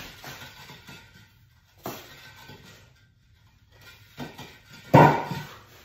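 Hollow concrete blocks knocking and grinding against each other as a row of them is squeezed and lifted, with a few sharp clunks. About five seconds in comes one loud crash, the loudest sound, as the blocks come down.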